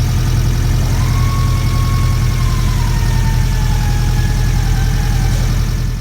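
Toyota MR2 SW20 engine idling steadily through its exhaust, the small exhaust-pipe leak now welded shut. A faint whine comes in about a second in and slowly falls in pitch.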